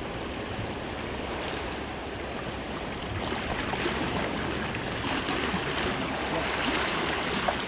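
Sea water washing and sloshing against rocks at the shoreline: a steady rush of surf that swells a little in the second half.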